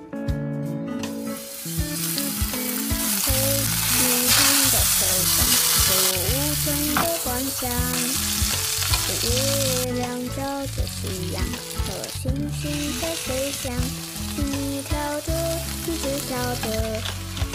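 Steak and then large prawns sizzling in hot oil in a frying pan. The sizzle starts about a second and a half in, with a melodic tune playing faintly underneath.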